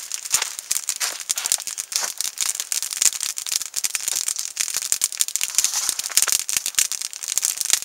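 Wood campfire of sticks and brush crackling and popping, a dense, irregular run of sharp snaps.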